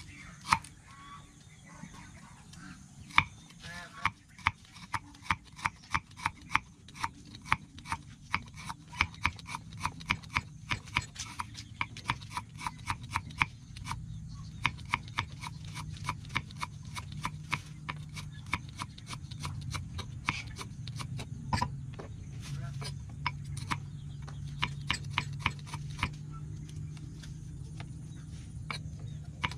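A kitchen knife slicing through a small ingredient on a thick round wooden chopping board: a long, quick, even run of sharp knocks on the wood, thinning out near the end.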